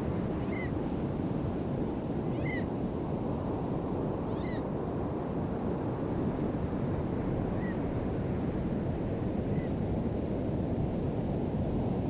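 Steady wash of ocean surf and wind, with a short, high, mewing bird call about every two seconds. The calls are clearest in the first five seconds and fainter after.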